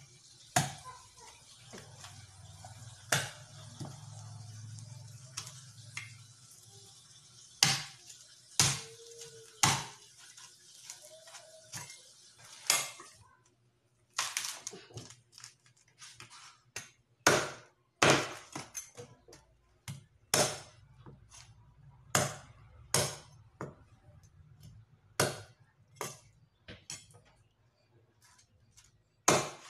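Meat cleaver chopping a raw whole chicken into pieces on a wooden chopping board: repeated sharp chops, a second or two apart at first, coming faster in the second half.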